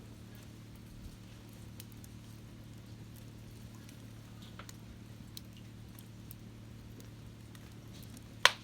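Wood fire in a Swedish torch (split upright log) burning, crackling with scattered small pops and one sharp, loud pop near the end, over a low steady hum.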